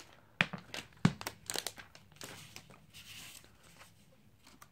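Thin clear plastic wrap crinkling as it is pulled off an iPad mini and handled, with a few sharp knocks, the loudest about a second in. The rustling fades toward the end.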